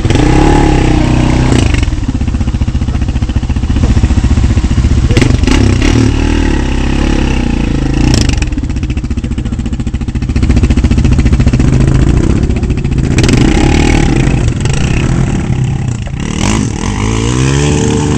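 Quad bike (ATV) engines running in mud, revving up and down, with a few sharp knocks and clatters. One engine revs up near the end.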